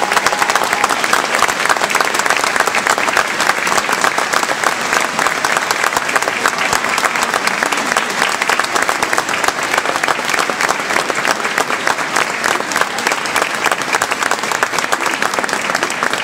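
A large crowd applauding, a dense steady clapping that holds at the same level throughout.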